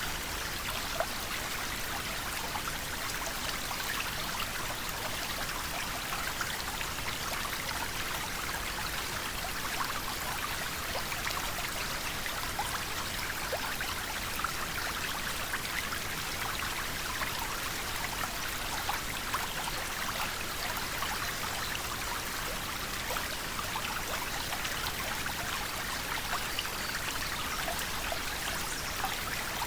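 A river flowing: steady rushing and trickling water with many small splashes and droplet ticks.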